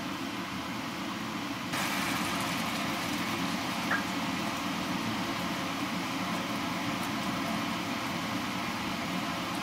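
Diced chicken frying in a pan, sizzling steadily over a fan-like hum. The sizzling hiss gets louder about two seconds in, as cream goes into the hot pan, with one short blip a couple of seconds later.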